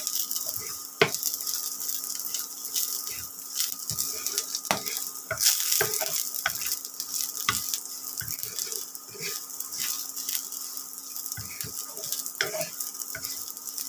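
Sliced garlic and green chillies sizzling in hot oil in a nonstick pan, stirred with a wooden spatula that scrapes and knocks against the pan at irregular moments.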